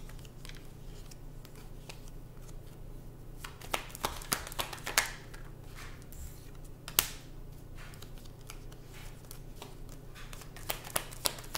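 A tarot deck shuffled and handled by hand: scattered crisp snaps and flicks of cards, in short clusters a few seconds apart, over a steady low hum.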